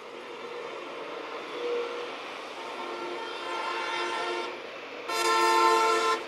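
A horn sounding twice: a softer, longer blast that swells in about two and a half seconds in, then a loud blast of about a second near the end, several notes sounding together, over a steady hiss.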